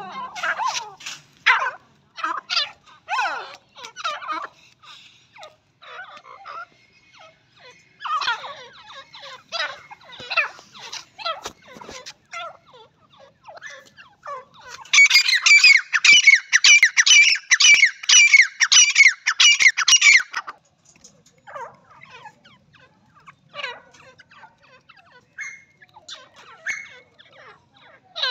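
Grey francolins calling: scattered short calls, then a loud run of rapid shrill notes lasting about five seconds midway.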